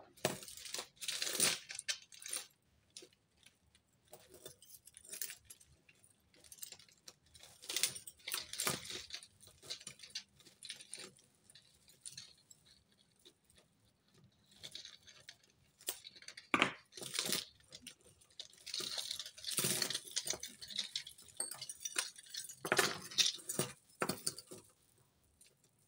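Tangled costume jewellery (metal chains, pendants and beads) jangling and clinking as hands sort through a pile of it, in irregular spells with short pauses between.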